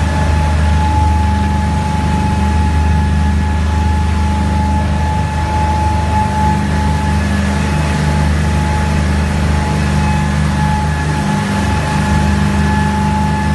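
Twin petrol engines of a Magnum Marine 38 powerboat with BPM V-drives running steadily at speed: a deep, even engine drone with a rush of wind and water over it, and a steady high whine above the engine note.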